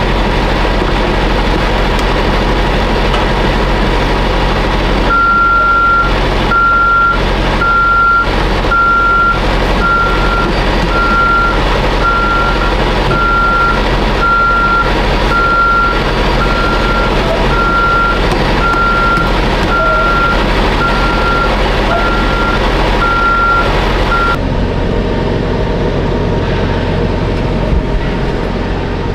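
Semi-truck diesel engine idling steadily, with a reversing alarm beeping about once a second from about five seconds in; the beeping stops about five seconds before the end.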